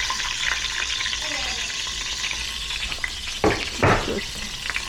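Oil sizzling steadily in a pan as food is stirred, with two loud knocks about three and a half seconds in.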